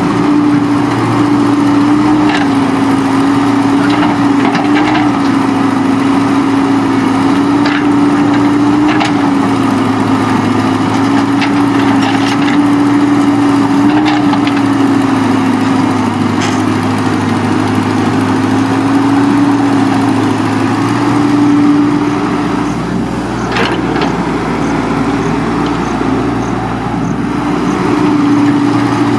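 Engine of an earthmoving machine running steadily, its pitch wavering a little, with scattered short knocks and clatters over it.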